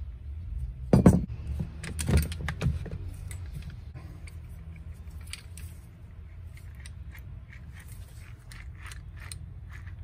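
Metal parts of a Stihl MS250 chainsaw engine clunking as the crankcase half comes off, loudest about a second in and again around two seconds, then the crankshaft's main bearings turned by hand with faint rough clicking: the bearings are worn out.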